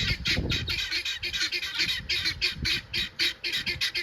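Farm birds squawking in a rapid, unbroken chatter of short calls, several a second.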